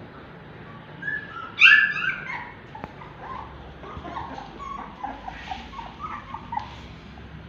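Newborn German Shepherd puppies squeaking and whimpering in the whelping box: one loud cry about a second and a half in, then a run of short squeaks.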